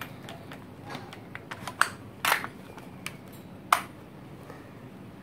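WE SCAR-L gas blowback airsoft rifle being handled, its metal parts giving a series of sharp clicks and clacks; the loudest come a little under two seconds in, just after that, and near four seconds in.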